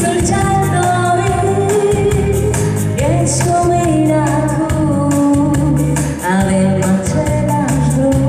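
A woman sings a Moldovan lăutari-style wedding song into a microphone, holding long notes with vibrato, over amplified band backing with a bass line and a steady beat.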